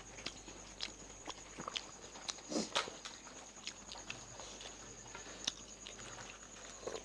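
Fuchka (pani puri) being eaten: crisp hollow puri shells, filled with mashed potato and sour tamarind water, crunched and chewed in quick succession. It comes as a string of short, irregular crackly crunches, with a louder burst of crunching about two and a half seconds in.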